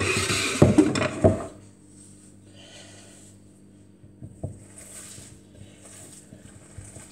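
A glass mixing bowl handled and set down on the worktop with a couple of knocks, then hands working the raw meat-and-vegetable nem filling in the bowl, much fainter.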